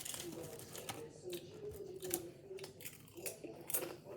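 Potato chips being eaten: a series of sharp, irregular crunches with chewing between them, over a faint wavering low tone.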